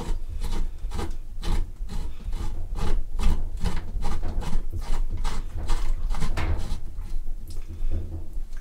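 Washing-machine hose coupling being twisted by hand onto the threaded brass valve outlet of a whole-house water filter: a steady run of short rasping scrapes, a few each second, as the coupling turns on the threads.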